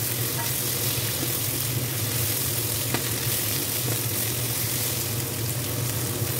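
Cabbage, onion and meatballs sizzling in a hot nonstick frying pan as they are stirred and tossed with a spatula, over a steady low hum, with a light click about three seconds in.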